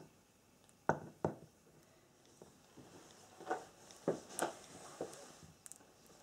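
Handling noises from a twist-handle clay extruder being worked over a wooden board: a handful of short knocks and clicks, the loudest two close together about a second in, more scattered through the rest.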